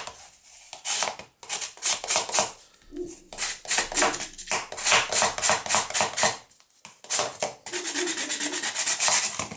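Hand sanding of the broken edges of a polypropylene/glass-fibre air filter housing: quick back-and-forth scraping strokes, about three to four a second, in several runs with brief pauses between them, cleaning the edges back before plastic welding.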